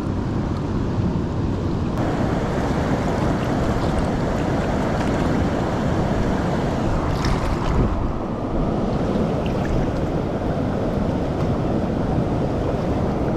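Steady rushing of water pouring over a spillway, mixed with wind buffeting the microphone.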